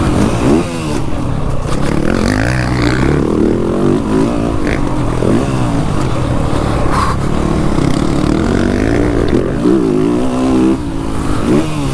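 Motocross bike engine heard on board, revving up and dropping back again and again as the throttle is opened and shut and the gears change.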